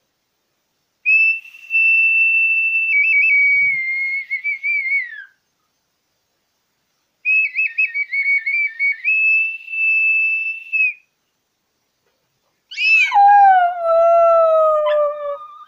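A small whistle blown in two long blasts of about four seconds each, at a steady high pitch with some warbling. Near the end a small dog howls along to it, one long note sliding down in pitch.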